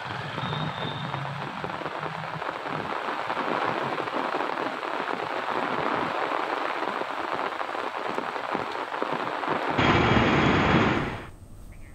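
Heavy rain falling steadily on streets, a dense even hiss. About ten seconds in it cuts to a louder, fuller rain sound, which fades away shortly before the end.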